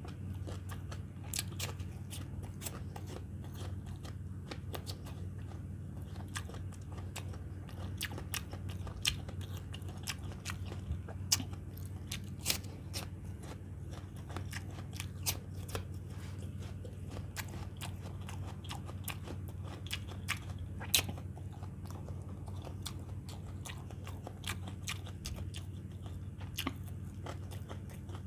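Close-up chewing and biting with crisp crunches and wet mouth clicks, a man eating peeled apple pieces and fried chicken, over a steady low hum.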